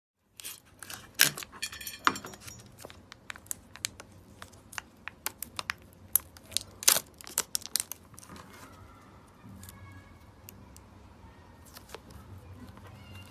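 Mirror putty being handled, its trapped air bubbles popping in a rapid, uneven run of sharp clicks and snaps, the loudest about a second in and again about seven seconds in. The popping stops about eight seconds in, leaving a faint low hum.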